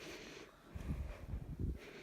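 Heavy breathing close to the microphone, with a few dull low thumps about a second in.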